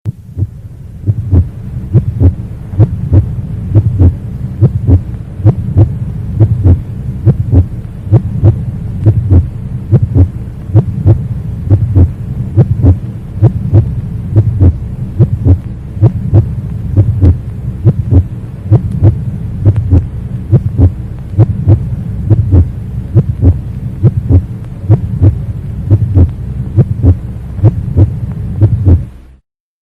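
Heartbeat sound effect: a steady rhythm of low, thudding beats, a little faster than one a second, over a constant low hum. It cuts off suddenly near the end.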